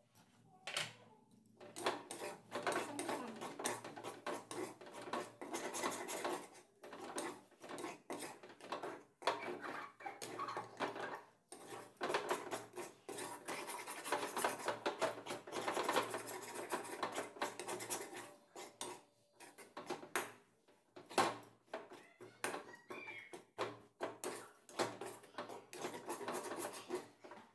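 Metal ladle scraping and stirring a thick mashed green-pea filling in a metal kadai, in quick, irregular strokes with a few short pauses, as the kachori stuffing is roasted.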